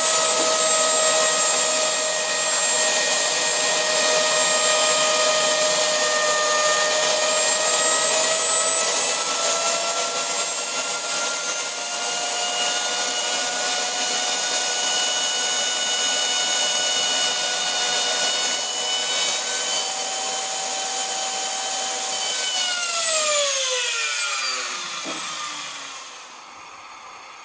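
Small homemade jet engine running with a steady high-pitched whine that climbs a little in pitch, then, about 23 seconds in, sweeps down as the rotor spools down and the sound dies away.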